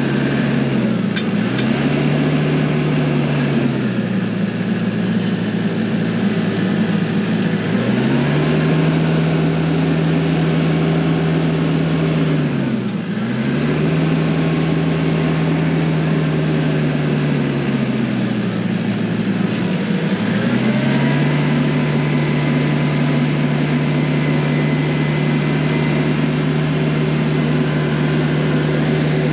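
TYM T474 compact tractor's diesel engine running under work. Its pitch dips and picks back up several times, then holds steady near the end.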